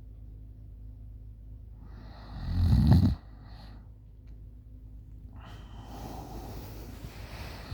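A woman snoring in deep sleep: one loud snore that builds and cuts off about three seconds in, then a softer breathy breath from about halfway through.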